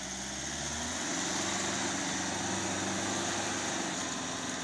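Nissan Navara pickup's engine running under load as it reverses through deep mud, climbing in revs about a second in and then holding steady.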